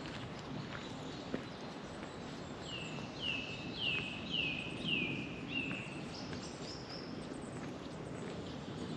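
A hiker's footsteps on a trail, with a bird singing a run of about six falling notes, roughly two a second, in the middle, followed by a few fainter higher notes.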